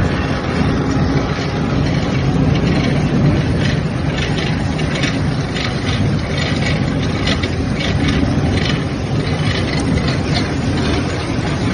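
SKJ350 wood pellet mill line running under load, pressing sawdust into pellets: a steady mechanical drone. From about four seconds in, a rapid rattle of fresh pellets tumbling through the rotating mesh drum screen.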